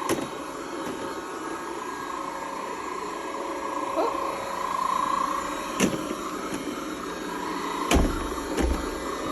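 Robot vacuum cleaner running with a steady whirring hum, with a few sharp knocks in the second half, the loudest near the end.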